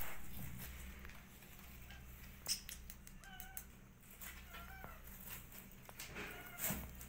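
Kittens mewing faintly, several short, thin, high cries in the second half, one rising at the end, with a few small taps between them.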